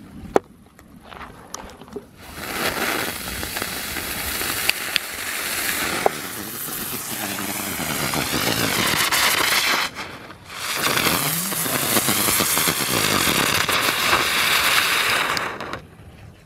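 Panda 'Flotte Biene' ground spinner firework: a brief crackle of the fuse, then a loud hissing whizz with a wavering pitch from about two seconds in as it spins on the ground. The whizz breaks off for a moment near the middle, picks up again, and stops shortly before the end.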